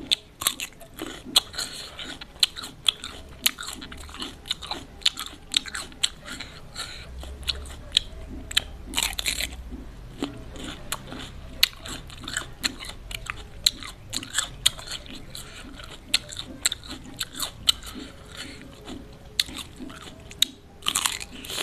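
Close-miked mouth sounds of someone biting into and chewing raw cucumber: a wet, crunchy chewing with many sharp crackles, and two longer, louder crunching moments about nine seconds in and near the end.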